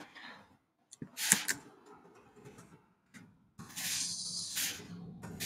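A few soft computer-keyboard clicks as a word is typed into the code editor. There is a short hiss about a second in and a longer breathy hiss of a little over a second past the middle.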